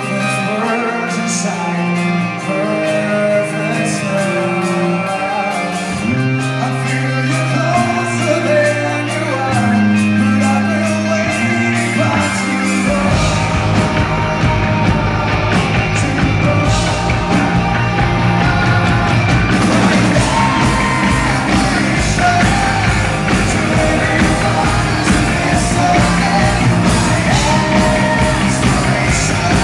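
Live rock band with a male lead singer: a sparser opening of held bass and guitar notes under the vocal, then the drums and full band come in about halfway through and drive on.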